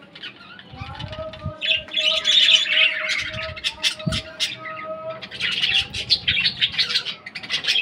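A flock of Australian parrots (budgerigars) chattering and squawking together, with dense overlapping calls that swell twice, about two seconds in and again near the end. A faint steady whistle-like tone runs beneath the calls for the first half.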